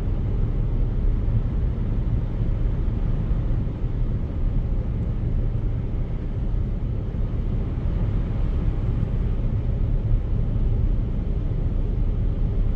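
Steady road and engine noise heard inside a car's cabin while driving on the freeway: an even, low rumble that doesn't change.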